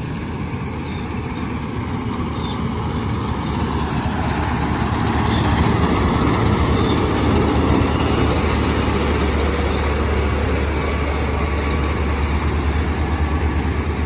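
Preet 987 combine harvester at work harvesting soybeans: its diesel engine's steady low drone mixed with the noise of the threshing and straw-discharge works. It grows louder from about five seconds in as the machine comes close.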